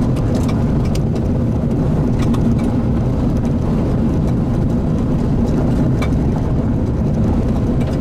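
Steady low rumble of a vehicle's engine and road noise, with a few faint scattered ticks.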